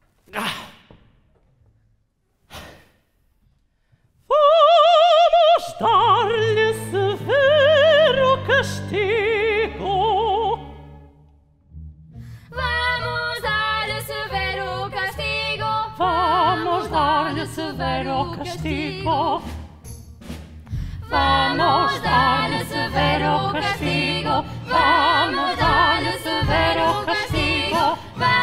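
Live opera performance. After a few seconds of near silence broken by a couple of knocks, a female voice sings an operatic phrase with wide vibrato over low orchestral accompaniment. Then several young female voices sing together with the orchestra, growing fuller about two-thirds of the way through.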